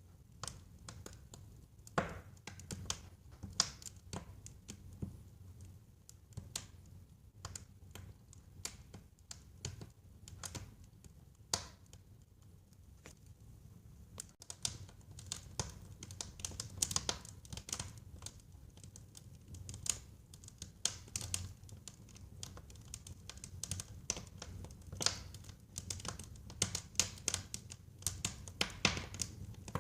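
Wood fire burning in a fireplace, crackling: irregular sharp pops and snaps over a low rumble of flame. The crackles grow busier in the second half.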